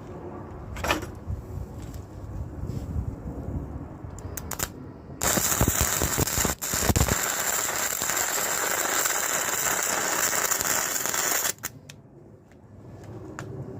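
Flux-core gasless MIG welder arc crackling and sizzling for about six seconds, starting about five seconds in and cutting off suddenly, with a brief break in the arc about a second after it starts. Before it there are a few sharp clicks over a low rumble.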